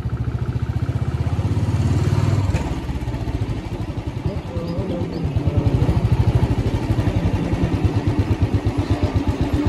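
Royal Enfield Classic 350's single-cylinder engine thumping as the bike rides slowly. The engine pulls harder for the first couple of seconds, eases off about two and a half seconds in, and then carries on at a steady low speed.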